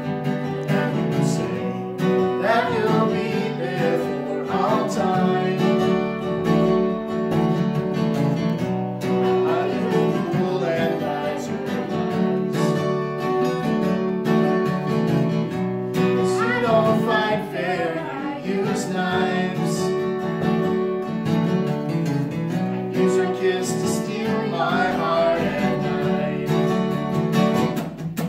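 Acoustic guitar strummed steadily in a live song, with a voice singing a few phrases over it now and then.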